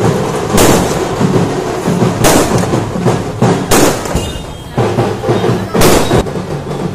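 Firecrackers going off in four loud sharp bangs, one to two seconds apart, over continuous music.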